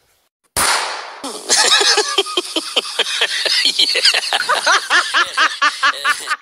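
High-pitched laughter, a fast run of repeated 'ha's at about five a second, starting after a short burst of hiss about half a second in.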